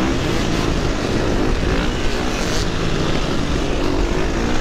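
Dirt bike engine running under throttle while being ridden, its pitch rising and falling, with other quad and dirt bike engines around it.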